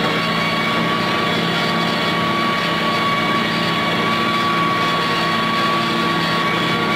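Antonio Carraro 10400 TTR tractor engine running steadily under load while its PTO-driven BCS Rotex rotary mower cuts grass, heard from inside the cab. A steady high whine sits above the engine note.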